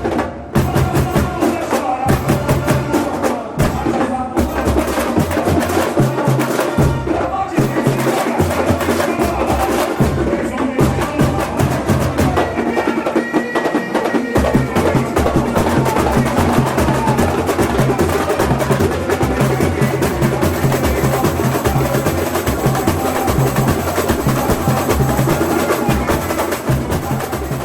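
Samba percussion ensemble playing a batucada groove: low bass drums repeating a steady pattern under dense, sharp strokes from higher drums and woodblock-like instruments.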